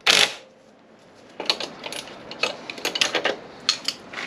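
A short, loud burst of noise right at the start, then from about a second and a half in a quick run of light metallic clicks and clinks: a spanner and metal parts knocking on a coilover shock absorber's top mount.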